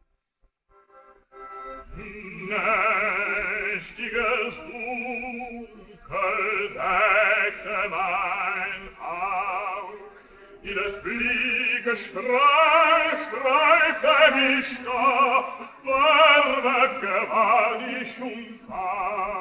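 Operatic tenor voice singing unaccompanied in German, with a wide vibrato, in sustained phrases separated by brief breaths. It starts after a moment of silence about a second in.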